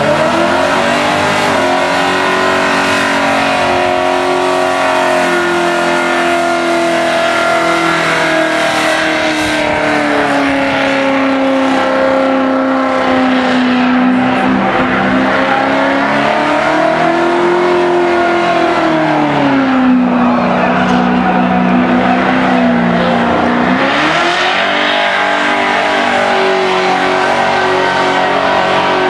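Holden ute's engine held at high revs through a burnout, the revs sagging and climbing back several times, with a longer dip near the end before it picks up again.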